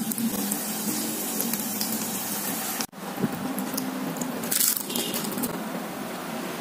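Instant noodles sizzling in oil in a small electric pan. After a break about three seconds in, the crisp fried noodle cake crunches as it is handled and cut with a spoon, loudest about a second and a half later.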